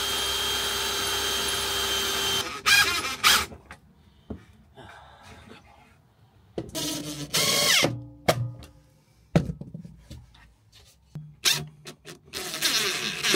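Power drill driving screws into wooden boarding: a steady whine for about two and a half seconds, then several shorter bursts, one winding down in pitch.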